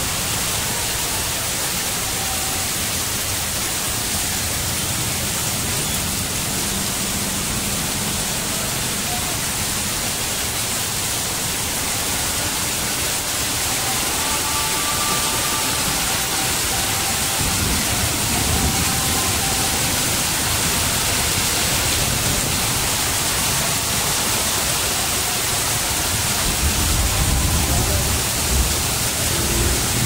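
Heavy rain falling steadily: an even, dense hiss of rain on pavement and roofs, with runoff pouring from roof edges. A low rumble builds near the end.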